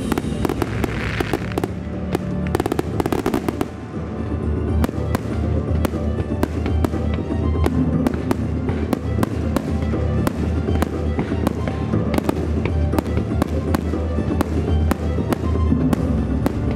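Starmine fireworks barrage: firework shells bursting in quick succession over loud music from loudspeakers. The bangs come sparsely at first, then settle into a dense run of about two or three a second from about four seconds in.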